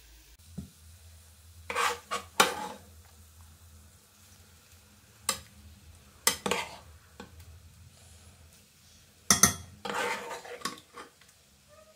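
A spoon scraping and knocking against nonstick pans as spicy masala is scooped out and spread over a layer of rice, in several short clatters about two seconds in, around five to six seconds, and near ten seconds, over a faint low hum.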